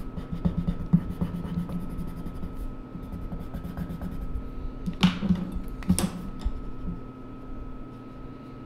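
Coloured pencil scribbling on drawing paper in quick back-and-forth shading strokes, then two sharp clicks about five and six seconds in.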